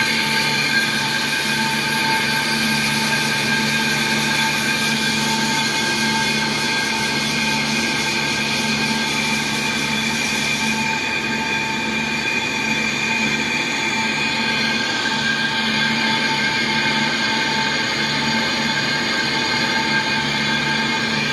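Old geared lathe turning a truck brake drum while the tool bit cuts its inner braking surface: a steady, high-pitched machine whine of several tones over a scraping hiss from the cut.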